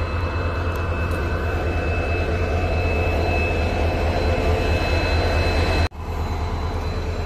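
WDG-4D diesel-electric locomotive idling steadily: a deep engine rumble with a thin high whine over it. It drops out for an instant about six seconds in, then carries on.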